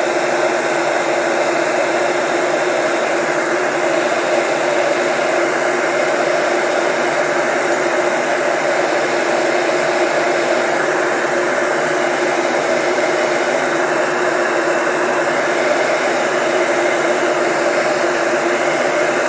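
Heat gun running steadily, its fan blowing hot air to shrink heat-shrink tubing over braided-sleeved wires: an even rush of air with a steady motor hum.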